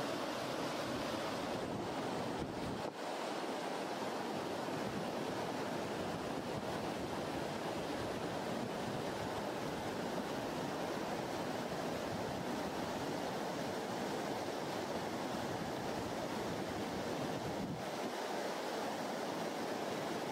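Steady rushing of river water flowing over rocks.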